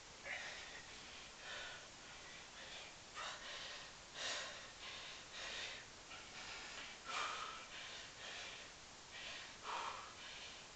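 A man breathing hard from exertion, short forceful breaths through the nose and mouth about once a second, some with a slight gasping voice in them.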